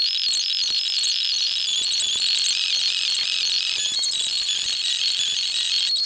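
Background music: a bright, high-pitched tune of quick stepping notes over a steady high drone.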